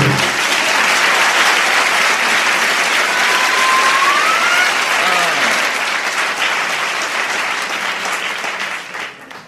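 Live audience applauding at the end of a song, with a whistle rising in pitch about three seconds in; the applause fades out near the end.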